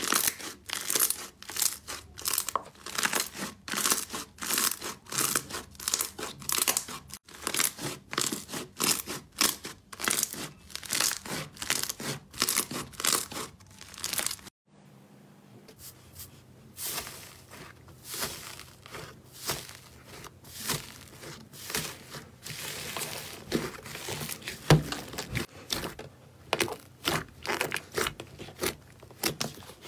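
Slime being squeezed, stretched and kneaded by hand, giving a fast run of sticky crackles and little air pops. It breaks off briefly about halfway through, then picks up again, softer at first.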